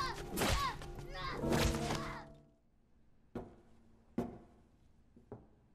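Film soundtrack: music and fight hits for about two seconds. It then drops to a quiet room, broken by three sharp knocks roughly a second apart.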